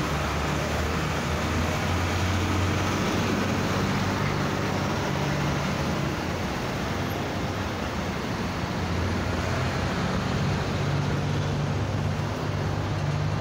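Road traffic on a busy highway: a steady mix of passing car and truck engines and tyre noise, with a low engine hum throughout.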